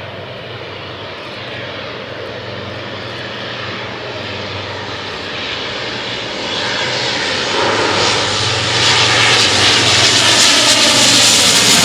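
Canadair CL-415 water bomber's twin turboprop engines running and growing steadily louder, with a rushing hiss building over the last few seconds.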